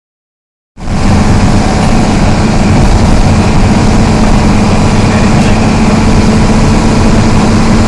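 Isuzu MT133 RHD bus's diesel engine running steadily with a loud low drone and a constant hum, cutting in abruptly under a second in.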